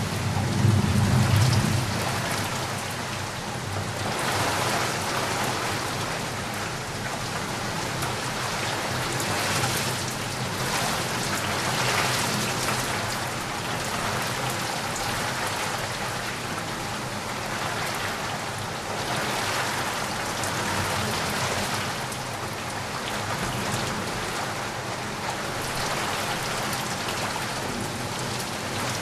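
Steady rain falling hard in a thunderstorm, with a low rumble of thunder about a second in.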